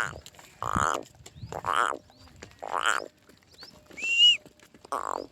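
Short animal calls repeated about once a second, four in all, each with a rippling, wavering tone. Small bird-like chirps sound between them, and a clear whistled note about four seconds in.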